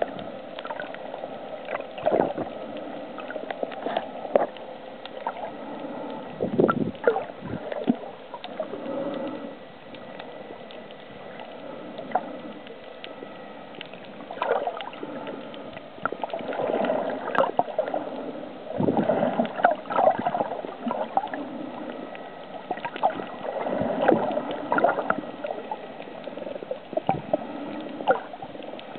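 Underwater sound heard through a camera's waterproof housing: muffled water movement and gurgling bubbles that swell in irregular bursts every few seconds, with scattered clicks and a faint steady whine.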